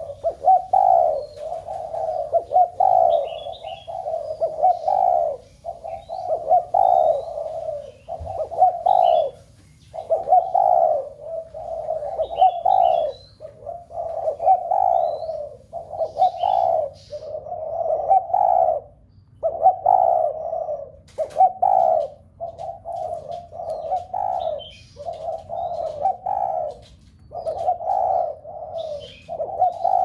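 Spotted dove cooing, one coo phrase after another with short gaps between them.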